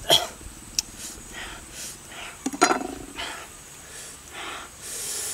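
Close-up eating sounds of crisp fruit: sharp crunchy bites and chewing, with wet mouth smacking and breathy noises. The loudest crunches come just after the start and about halfway through, the second with a short grunt under it.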